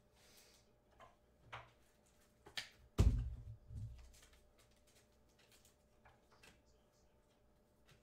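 Handling noises: a few light clicks, then a heavier thump about three seconds in, followed by a smaller knock, like objects being moved and set down.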